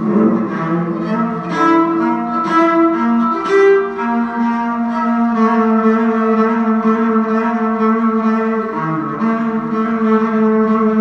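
Solo cello bowed live, a few shorter changing notes in the first seconds giving way to long held notes.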